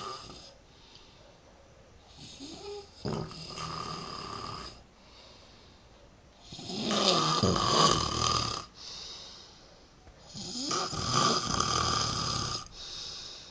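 A man snoring in his sleep: three long snores about four seconds apart, the middle one loudest, with softer breaths between them.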